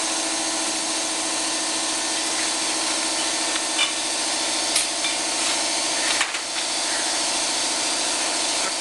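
Shop air compressor running steadily: a constant hum over an even hiss, with a few light knocks of tools partway through.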